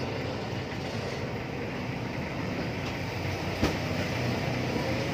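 Steady low rumbling background noise, with one sharp click about three and a half seconds in.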